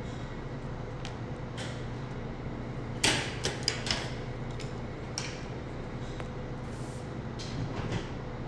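Handling sounds at a stainless steel worktable: a quick cluster of sharp knocks and clicks about three seconds in, with a few fainter clicks before and after, over a steady low machine hum.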